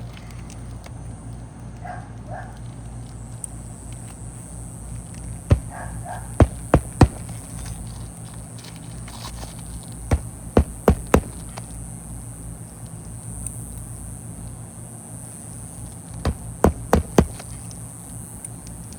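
Roofing nails being driven into asphalt shingles during a shingle repair: three quick bursts of about four sharp strikes each, over a steady low hum.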